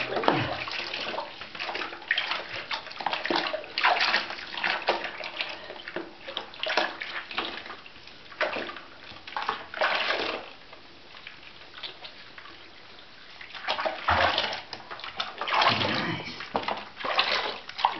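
Bathwater sloshing and splashing in a plastic basin as hands rub a puppy and scoop water over her. The splashes come in irregular bursts with short lulls between them.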